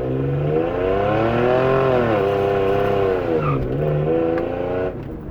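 Straight-piped 2001 Toyota 4Runner exhaust fitted with a Helmholtz resonator, at full throttle through first gear while the tires spin in a burnout. The engine note rises in pitch, sags twice briefly, and falls away near the end as the throttle comes off.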